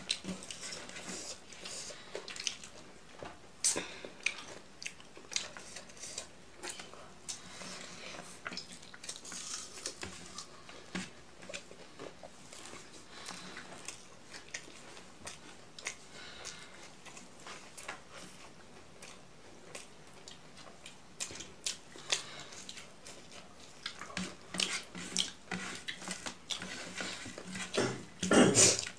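Close-up eating sounds of a person eating rice by hand: chewing and biting, mixed with sharp clicks and scrapes of fingers working rice against a ceramic plate. The loudest clicks come right at the start and just before the end.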